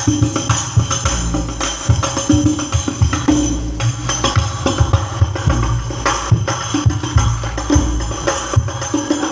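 Hadroh-style percussion ensemble at a sound check: jingling rebana frame drums and tambourines over deep bass-drum strokes in a steady, driving rhythm.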